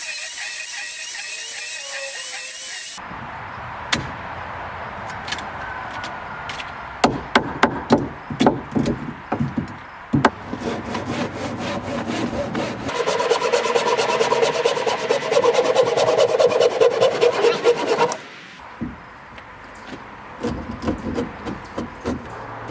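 Hand-sawing and sharp knocks on a wooden post as a rotted section is cut out for a splice: irregular knocks, then about five seconds of quick, even saw strokes, then more knocks. A different, steady sound plays for the first three seconds and cuts off suddenly.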